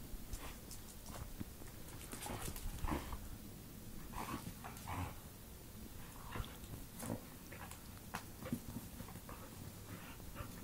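Border collies play-fighting, with scattered short dog vocal sounds and scuffles.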